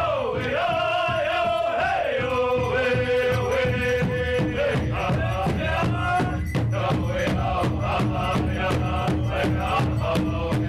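Native American powwow drum song: several singers beat a large hide powwow drum in a steady beat while singing in a high, chanting style. A lead voice opens with a high call that slides down into a long held note, and more voices carry the song on.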